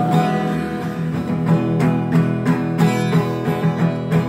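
Acoustic guitar strummed in a steady rhythm of chords, about three strums a second.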